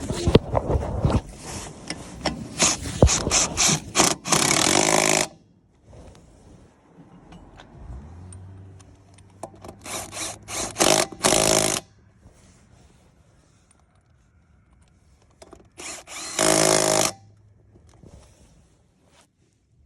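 Battery impact wrench running lug nuts onto a wheel in several short runs, the longest about a second, with metal clanks and clicks of tools and parts being handled at the start.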